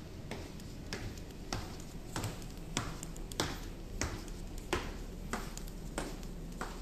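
Footsteps going down stone stairs and then across a polished marble floor: sharp, even clicks about every 0.6 seconds over a steady low hum.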